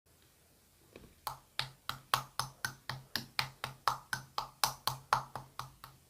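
Chewy slime marbled with shaving foam being pressed and squished in a steady rhythm, giving sharp clicking pops at about four a second, starting about a second in.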